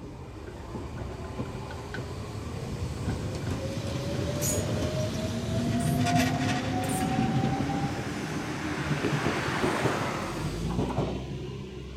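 Shizuoka Railway 1000-series electric train pulling out and passing close by. Its motor whine rises steadily in pitch as it accelerates, and there are sharp clicks from the wheels about halfway through. It fades as it draws away near the end.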